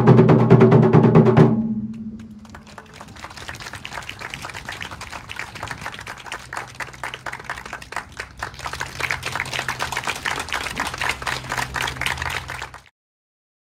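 Japanese taiko drum ensemble: loud full drumming stops about a second and a half in, then gives way to a quieter passage of quick, light, closely spaced strikes that swell a little before cutting off abruptly near the end.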